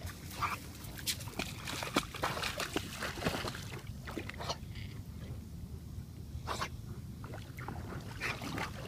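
A dog wading in shallow lake water, its legs splashing and sloshing in irregular bursts, busiest in the first few seconds, with a few lone splashes later.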